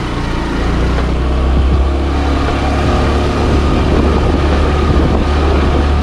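Bajaj Avenger motorcycle engine running steadily under load as it climbs a steep hill road, with wind noise on the microphone.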